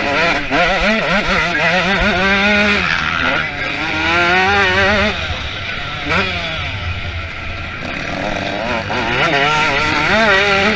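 Motocross bike engines revving hard, their pitch climbing and dropping again and again as they accelerate, shift and back off.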